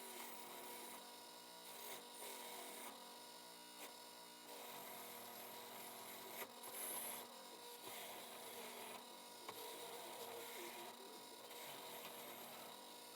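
Faint repeated rubbing or scraping strokes from hand work on the plane, such as sanding or honing, coming and going about every second. A steady electrical hum runs underneath.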